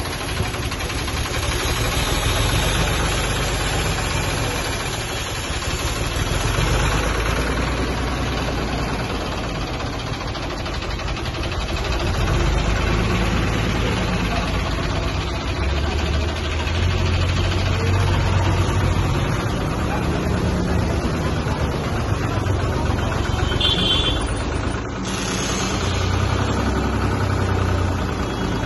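Diesel engine of a truck-mounted crane running through a hoist, a steady low hum that swells for a few seconds at a time while the crane lifts.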